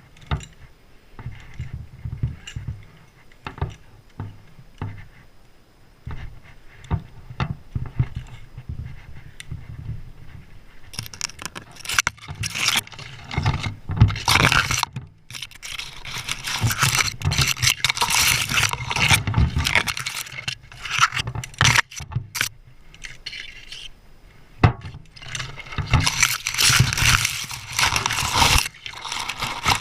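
Spruce branches scraping and rustling against gear, with metal clinking like climbing hardware. Scattered knocks and rattles in the first ten seconds give way to long stretches of dense scraping from about the middle onward, with a pause before the last stretch near the end.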